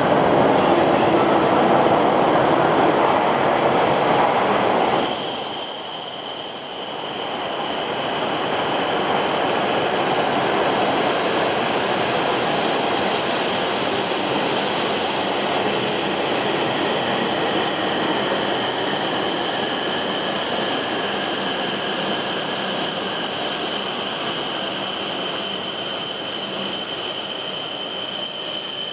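Shinkansen train noise at the platform: a loud rushing sound for about five seconds, then it drops to a steadier hiss with a constant high-pitched whine.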